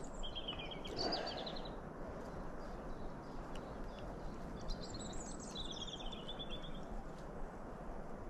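Small songbirds singing short trilled phrases several times over a steady outdoor background hiss.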